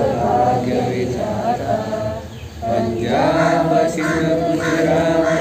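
A group of voices singing a patriotic song together, with a short break for breath about two and a half seconds in.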